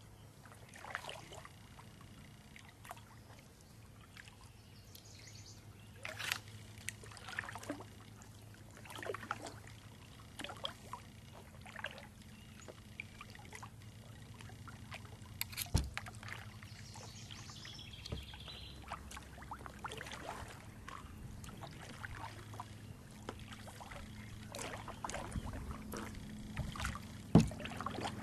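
Kayak being paddled across calm water: repeated paddle splashes and drips every second or two over a low steady hum. A sharp knock comes about halfway through and a louder one near the end, likely the paddle striking the hull.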